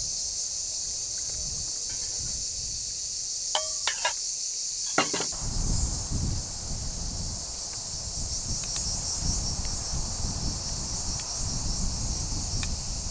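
Steady high-pitched chorus of insects, with a few sharp clinks of a metal spoon against a bowl about four to five seconds in. Wind rumbles on the microphone in the second half.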